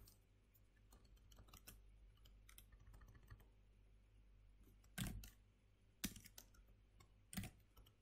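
A few separate keystrokes on a computer keyboard, the loudest about five, six and seven and a half seconds in, over a faint steady low hum.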